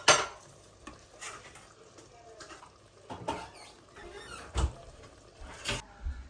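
Knocks and clatters of kitchen things being handled, the loudest one right at the start and several smaller ones spread through.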